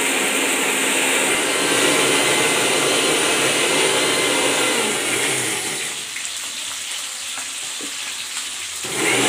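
Electric mixer grinder running, then pabda fish sizzling as they shallow-fry in hot mustard oil in a frying pan. The sizzle turns quieter and thinner for the last few seconds.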